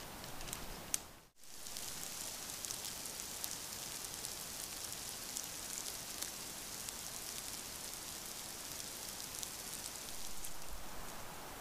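Rain falling steadily: a dense patter of small drop ticks over a soft hiss, after a brief break about a second in.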